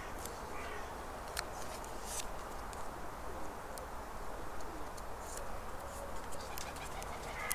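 Quiet, steady room hiss with a few faint clicks of double-sided sticky tape and a paper cut-out being handled, and a couple of faint low sliding calls in the background.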